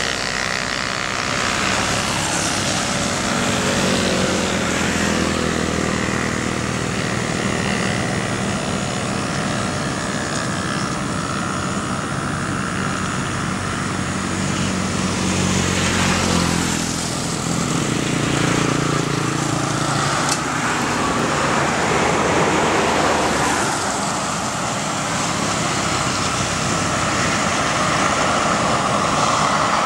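Distant Boeing 737 jet engines running at taxi power, a continuous rumble and rushing noise. A faint pitched hum fades about halfway through.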